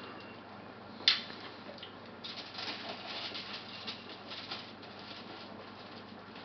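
Blanched asparagus spears being laid by hand onto a foil-lined pan: a sharp tap about a second in, then a stretch of light, irregular crinkling and rustling of the foil.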